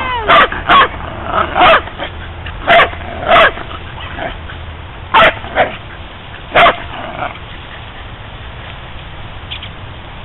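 A small dog barking sharply and repeatedly at a turtle, about eight barks in quick bursts over the first seven seconds, then stopping.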